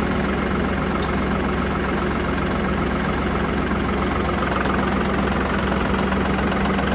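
John Deere 5075E tractor's diesel engine idling steadily.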